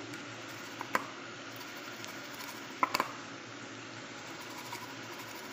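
A few light clinks of a spoon against a cooking pan while the chutney is being mixed: one about a second in and a quick pair near three seconds, over a steady low hiss.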